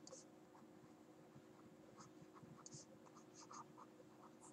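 Faint scratching of a stylus writing on a tablet, in short strokes clustered about two to four seconds in, over a low steady hum.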